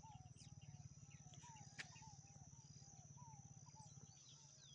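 Near silence: faint outdoor background of small repeated bird calls, a few a second, over a steady high-pitched drone.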